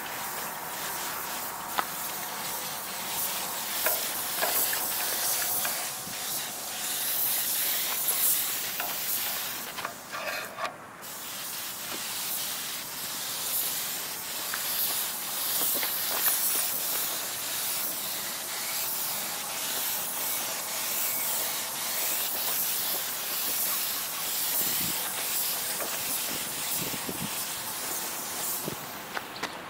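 Compressed-air paint spray gun hissing steadily as it sprays enamel, cutting off briefly about a third of the way in before resuming.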